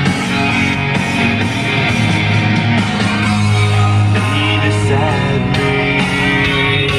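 Rock music with a singer and guitar playing on a truck's cab radio.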